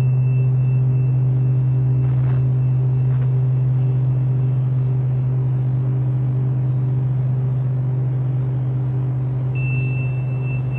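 A loud, steady low hum that does not change, with a faint high thin tone that drops out early on and returns near the end, and a couple of faint knocks.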